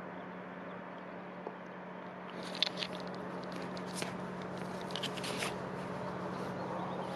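Irregular crackling and scraping clicks of hands handling a handheld camera, starting about a third of the way in, over a steady low hum and a faint noisy background.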